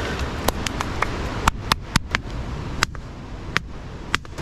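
Dry driftwood sticks in a carried bundle knocking and clacking together in sharp, irregular clicks, about ten in four seconds, over a steady background rush.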